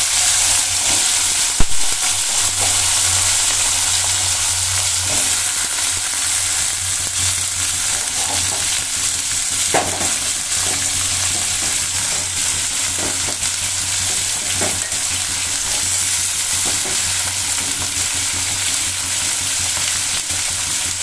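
Potato sticks frying in hot oil in an aluminium kadai, a steady sizzle with a few scattered pops. There is a sharp click about two seconds in and a low steady hum underneath.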